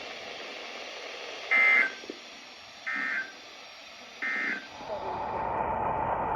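EAS end-of-message signal: three short bursts of digital data tones about a second and a half apart, the first loudest, marking the end of the alert. About five seconds in, a steady radio hiss with a faint steady tone comes in.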